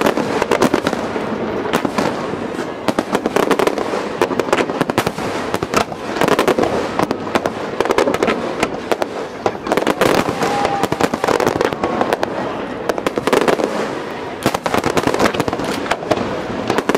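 Aerial firework shells bursting one after another, with dense crackling between the bangs.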